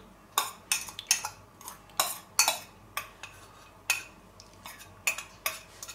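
Metal spoon clinking and scraping against a stainless steel bowl while scooping chopped onion and garlic out of it: a dozen or so short, sharp clicks at irregular intervals.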